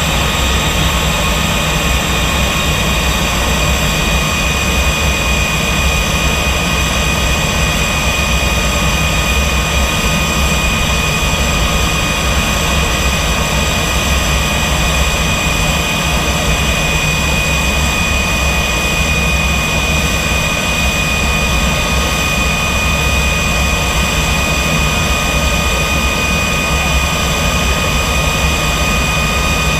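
L-39 jet's turbofan engine running steadily, a constant loud rush with a high, steady whine.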